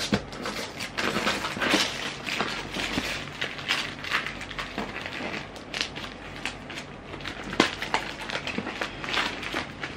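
Christmas wrapping paper being ripped and crumpled off a gift box by hand, an uneven run of crinkling and tearing with a sharp snap a little past halfway.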